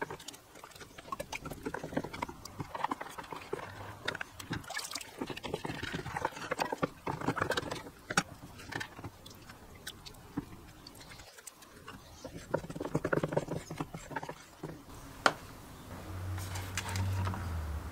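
Water sloshing and splashing in a plastic bucket as a wooden stick stirs baking soda into it to dissolve it, with scattered sharp knocks and clicks. Near the end, a low hum comes in under louder handling noise.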